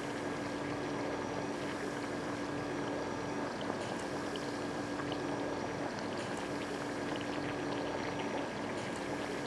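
Hot pot broth boiling in the pot at the table: a steady bubbling hiss, with a steady low hum underneath and a few faint clicks.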